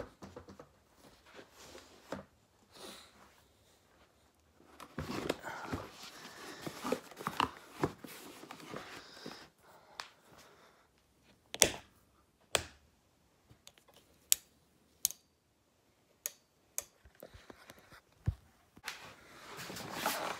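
Someone moving about a small room and handling things: scattered sharp knocks and clicks, with a longer stretch of rustling handling noise about five seconds in.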